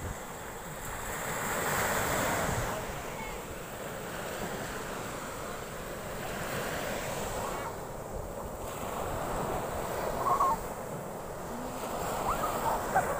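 Sea surf breaking and washing up a sandy beach, swelling about two seconds in and again near the end.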